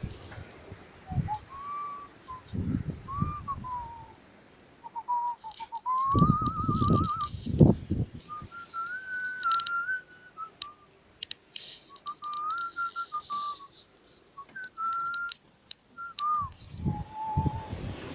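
A person whistling a tune: one clear note wandering up and down in pitch, with a wavering trill about six seconds in. Low handling thumps, loudest around the trill, and a few sharp clicks near the middle.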